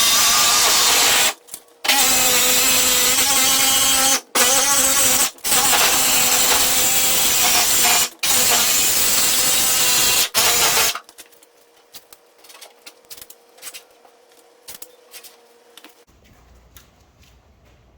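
Jigsaw cutting through the Sprinter van's sheet-metal side panel. It stops and restarts briefly several times, then stops about 11 s in. Light clicks and taps follow.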